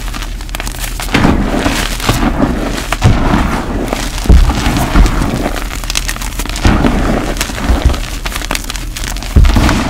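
Block gym chalk being squeezed and crushed by gloved hands into loose powder: a steady crackly crunching with several sudden louder crunches, about five of them.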